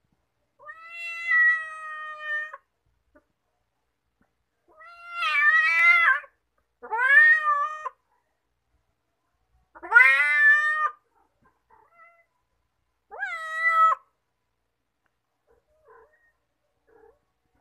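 Domestic cat meowing: five long, drawn-out meows of a second or two each, spaced a few seconds apart.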